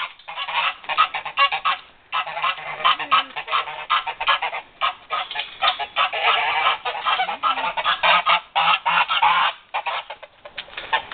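Geese, an African goose and a Dewlap Toulouse gander, honking loudly in rapid, overlapping calls, with short pauses about two seconds in and near the end.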